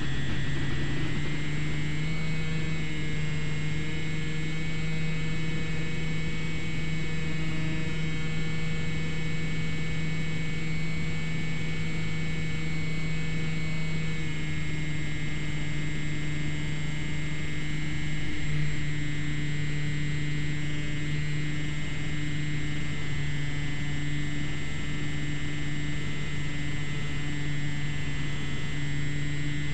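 Slowstick RC plane's electric motor and propeller running at high throttle: a steady whine over propeller buzz. The pitch settles just after the start, around the takeoff roll, and dips slightly about halfway through.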